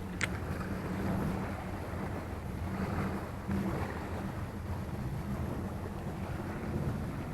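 Steady low rumble of wind buffeting the microphone over the sound of the sea, with one brief high, falling chirp just after the start.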